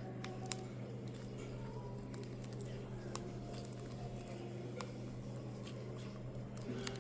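Birds pecking at seed: scattered light clicks and taps, irregularly spaced, over a steady low hum.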